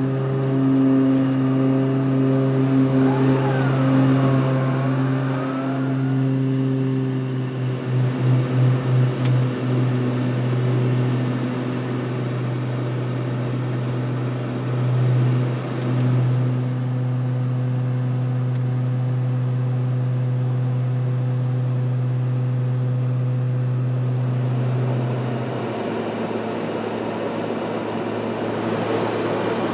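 Propeller aircraft in flight: a steady low engine-and-propeller drone with overtones, pulsing in level at times. Near the end the low hum drops away, leaving a broader rushing noise.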